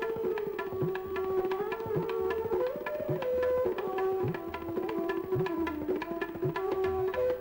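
Indian-style instrumental music: tabla strokes, some low drum strokes bending in pitch, under a sustained melody line that moves slowly between a few notes.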